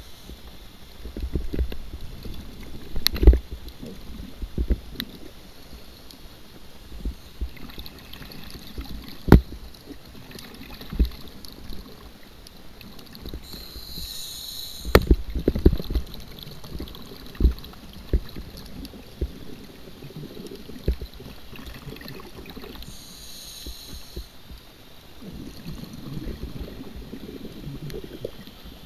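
A scuba dive heard through an underwater camera housing: scattered muffled knocks and sharp clicks against the housing, and two short hisses of the diver's breathing about 14 and 23 seconds in. A low bubbling rumble comes near the end.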